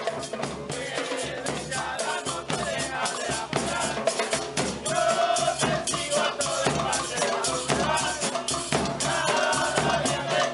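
A football supporters' drum band playing: large bass drums and a snare drum beaten with sticks in a steady, driving rhythm, with a handheld metal shaker rattling along.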